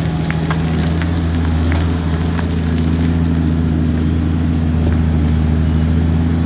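Diesel engine of a large Caterpillar mining excavator running steadily under load, a deep constant drone, with scattered faint clicks and crackles over it.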